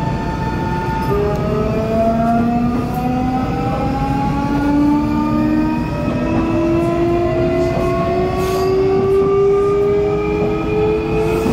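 Nankai 8300 series electric train accelerating. Its inverter and traction motors give a multi-tone whine that shifts about a second in and then climbs steadily in pitch, over the steady rumble of the running gear.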